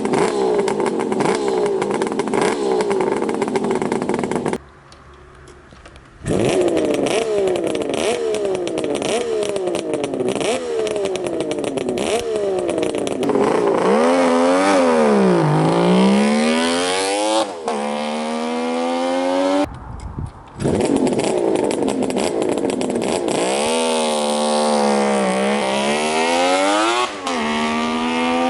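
Kawasaki 500 H1 two-stroke triple engine being revved in quick repeated blips, then running with its pitch dropping and climbing again as the bike slows and accelerates. The sound breaks off briefly twice.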